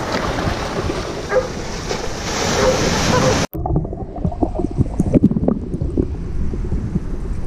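Wind buffeting an action camera's microphone over shallow surf splashing around a wading dog. About three and a half seconds in, the sound cuts abruptly to the muffled underwater sound of the dog paddling: dull knocks and bubbling with no hiss above.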